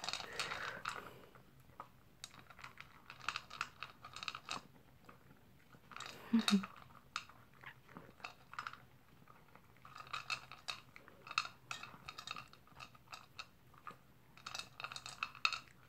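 A dog eating from its bowl, crunching its food in bursts of quick bites with pauses of a few seconds between them.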